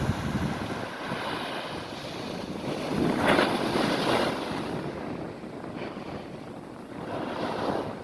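Atlantic Ocean waves breaking and washing up on a sandy beach shore, a steady surf wash that swells into a louder wave about three seconds in and another near the end.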